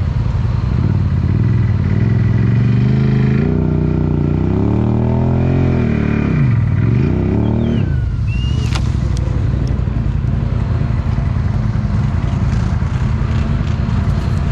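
ATV engine running, then revving up and down, its pitch dipping sharply and climbing again about halfway through. It then runs on with a rougher, less steady note, with a brief high squeak shortly after.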